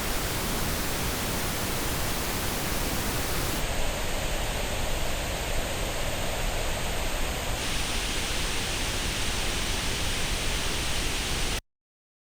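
Pink noise test signal recorded through earbuds on an artificial ear simulator, a steady even hiss. Its tone colour changes abruptly twice, about three and a half and seven and a half seconds in, as the recording switches to a different earbud's response. It cuts off sharply about a second before the end.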